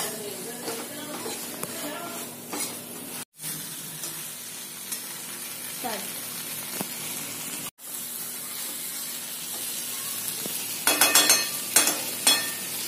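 Dried fish, onions and potato sizzling as they are sautéed in a steel frying pan and stirred with a steel spoon. Near the end comes a quick run of spoon strokes scraping against the pan.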